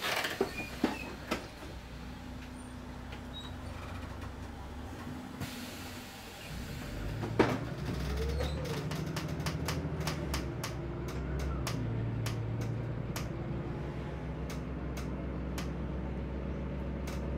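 City bus heard from inside: a few sharp clicks and knocks at the start over a steady low engine drone. About six seconds in, the engine grows louder as the bus moves off, and a run of short ticks and rattles follows.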